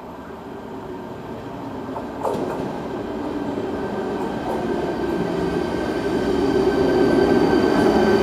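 Czech Railways class 471 CityElefant double-decker electric unit pulling into the platform, growing steadily louder as it comes in and passes close. A sudden sound comes about two seconds in, and steady high whining tones join in the second half.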